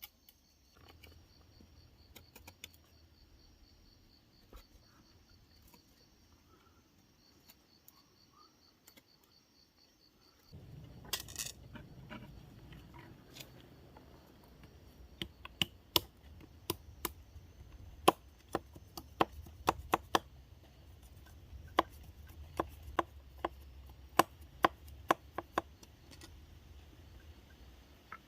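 Sharp, irregular knocks of a blade chopping wood. They start about a third of the way in, with handling noise between the strikes.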